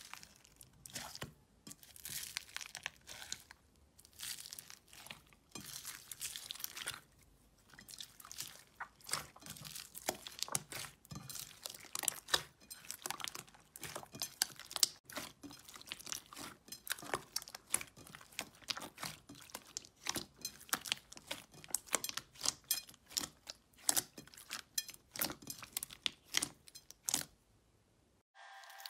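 Slime being squeezed and pressed by hand, giving rapid crackles and pops. The crackling comes in bunches every second or two at first, then runs almost without a break before it stops just before the end.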